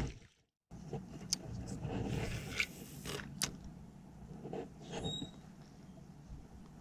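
Faint scattered clicks and scrapes of handling noise over a low steady background, after a moment of total silence near the start.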